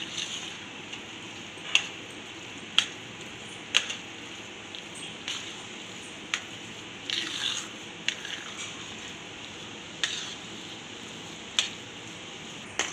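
Metal spoon stirring sugar syrup into thick, wet moong dal halwa in a steel pan: wet, squishy scraping strokes with sharp clinks of the spoon against the pan, roughly once a second.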